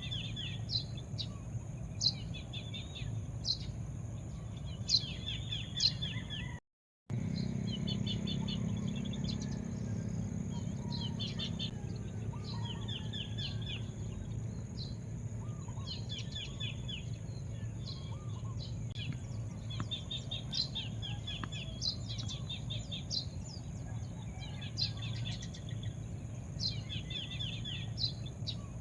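Small birds chirping over and over, with short high chirps and quick trills, over a steady low background rumble. The sound cuts out completely for a moment about seven seconds in.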